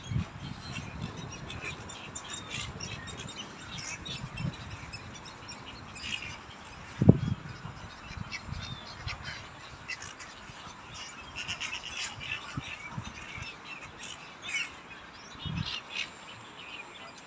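A flock of small birds chirping and calling in a tree, many short high calls overlapping throughout. A single low thump about seven seconds in.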